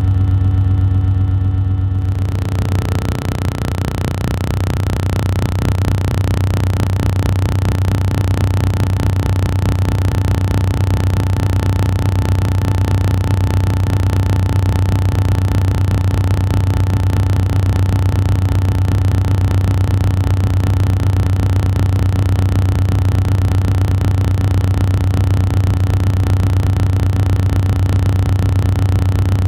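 A loud, steady low droning hum with a hiss that comes in about two seconds in and then holds unchanged.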